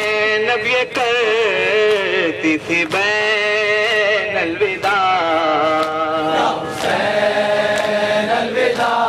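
Crowd of men chanting a nauha (mourning lament) together in long, wavering drawn-out lines, with scattered sharp slaps from hands beating on chests (matam).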